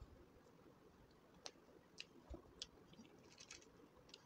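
Faint scattered clicks and light crackles of crispy fried potato sticks (aloo bhujiya) being picked up and dropped onto a plate of rice, with a quick cluster of them a little past halfway.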